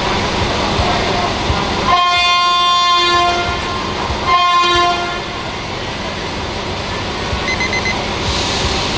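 Diesel locomotive sounding its multi-tone horn twice, a long blast and then a shorter one, over the steady rumble of the train.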